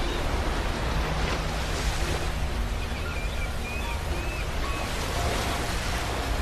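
Ocean waves washing on a beach in a steady wash of surf. Faint short high chirps come through about halfway.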